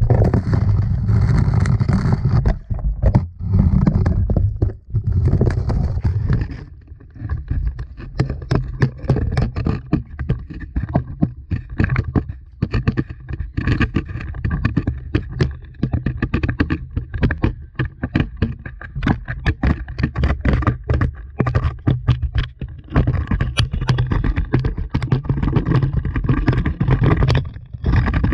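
Action camera scraping and knocking against the rock walls of a narrow dry-well shaft: a dense run of irregular clicks and scrapes over a low rumble, with hissing rubs in the first few seconds.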